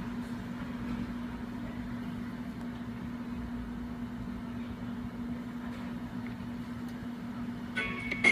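Steady background hum with one constant low tone. Near the end, plucked-guitar music starts playing through computer speakers as the web video begins.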